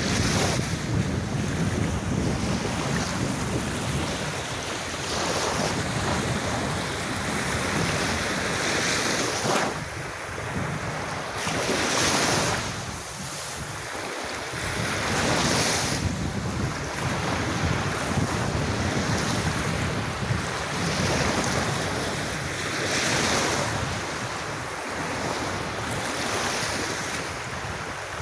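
Ocean waves washing onto a beach, surging and falling back every few seconds, with wind rumbling on the microphone.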